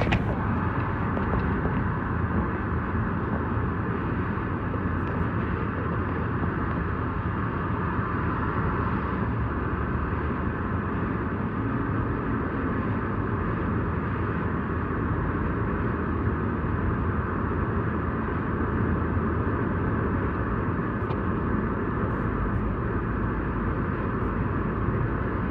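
Steady, unchanging road and engine noise of a moving vehicle.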